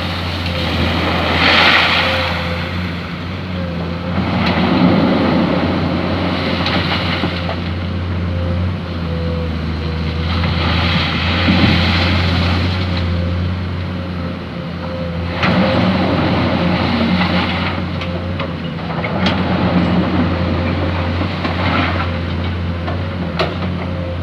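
Excavator's diesel engine running steadily under load, with a thin steady whine above it. Swells of rushing noise come every few seconds as the machine works the sand, with a few sharp knocks near the end.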